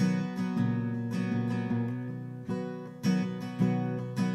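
Acoustic guitar strummed, each chord ringing on between strokes that come about every half second.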